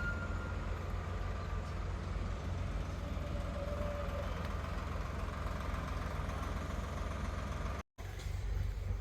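A vehicle engine idling steadily, a low even hum, cut off for an instant near the end before it carries on.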